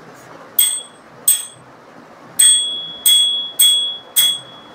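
Small handlebar bell for a child's kick scooter rung by hand six times: two single dings, then four quicker ones whose ringing runs on between strikes.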